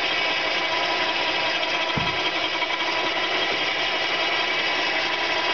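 Power winch motor running steadily under load, hauling in the cable that pulls the boat, with a short low thump about two seconds in.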